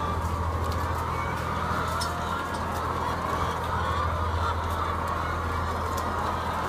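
A large flock of laying hens calling all at once, a dense, continuous chorus of overlapping clucks and squawks, over a steady low hum.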